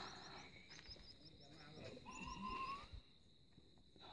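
Faint insects chirping in a steady high trill, with little chirps about four times a second. About two seconds in there is a brief soft call that rises at its end.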